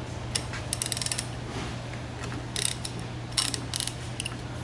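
Hand ratchet wrench clicking in several short runs of rapid clicks while loosening the flange bolts of a screw compressor's discharge stop valve, with a steady low hum behind it.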